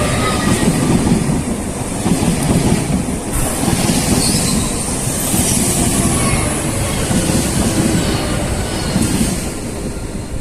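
Train passing close by, wheels running over the rails with a rattle, and a loud high hiss through the middle of the pass.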